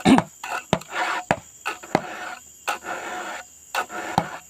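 Round file sharpening a chainsaw chain's cutters: a run of short rasping strokes, each starting with a click, about one every half second to second.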